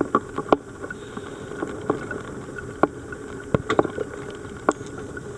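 Dive boat's engine running steadily, with a handful of sharp knocks and clicks scattered over it.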